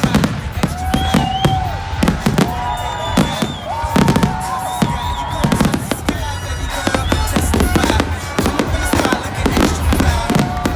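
Fireworks going off in quick succession: a dense run of sharp bangs and crackles, with music playing underneath.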